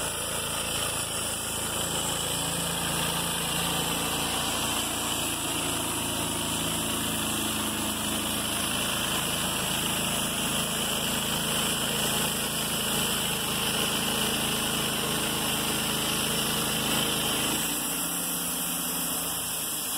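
Wood-Mizer LT35 portable band sawmill running steadily under load as its band blade saws through a log. The lowest part of the engine hum falls away near the end.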